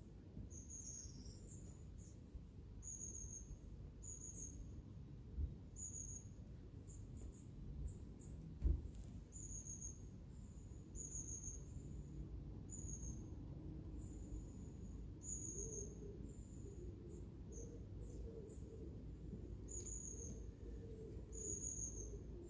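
A short, high, thin chirp repeated every half second to a second, over a low steady rumble, with two brief thumps, the louder one about nine seconds in.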